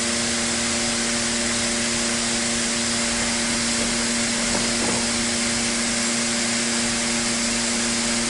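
Paint spray booth's ventilation fans running: a steady airy hiss over a constant low hum with several tones. A couple of faint rustles come about halfway through.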